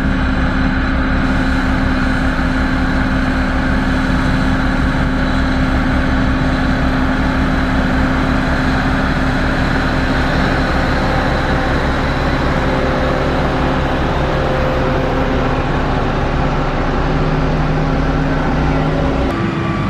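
Motor grader's diesel engine running steadily under load, with a low rumble and a steady engine note. The pitch shifts over the last few seconds, and the sound changes abruptly near the end.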